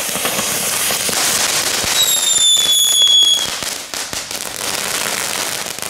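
Small CAT 1 ground fountain firework spraying sparks: a steady loud hiss peppered with rapid crackles, with a slightly falling whistle about two seconds in that lasts over a second. The spray quietens a little after about three and a half seconds.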